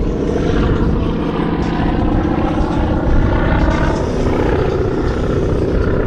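Propeller aircraft engines running in a steady drone, from the GEICO Skytypers' radial-engined SNJ-2 warbirds.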